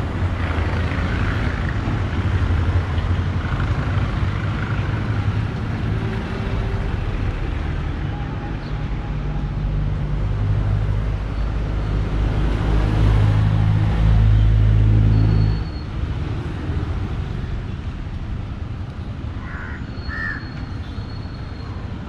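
Road traffic passing close by: engines rumbling steadily over tyre noise. A pickup truck passes close alongside about halfway through, and the sound is loudest then before dropping off sharply a few seconds later.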